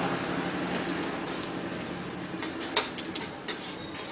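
Panch phoron seeds, a bay leaf and a dry red chilli sizzling in hot mustard oil in an aluminium pan, the seeds crackling and popping in quick sharp snaps; a spatula starts stirring near the end.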